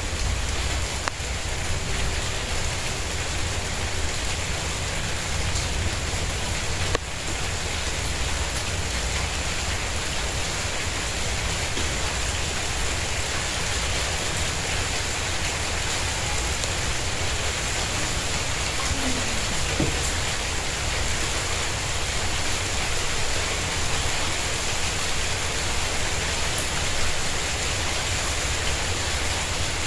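Calm, steady rain falling on a tiled courtyard and garden plants: an even hiss of many drops, without change.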